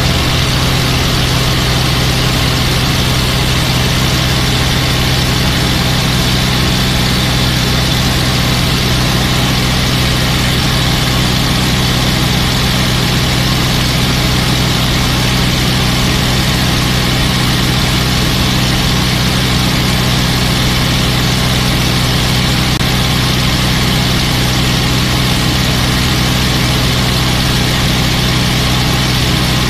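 A P-51 Mustang's V12 piston engine running steadily at cruise in formation flight, heard from inside the cockpit as a loud, even drone mixed with the rush of air over the airframe.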